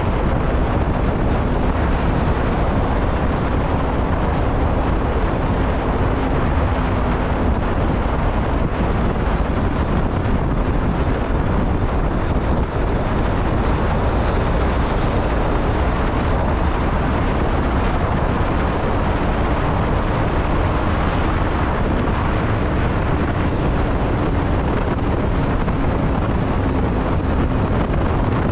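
Steady road and wind noise from a moving vehicle, with a faint engine hum holding a near-steady pitch.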